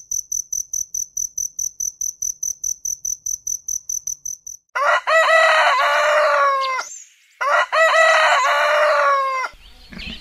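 A cricket chirping in a fast, even series of short high chirps, about six a second, stopping about four and a half seconds in; then a rooster crows twice, each crow about two seconds long and louder than the chirping.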